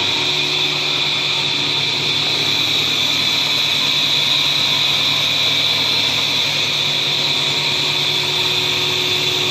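Frommia 635 three-phase table saw running freely at full speed, with no cut being made: a loud, steady whine of the motor and spinning blade.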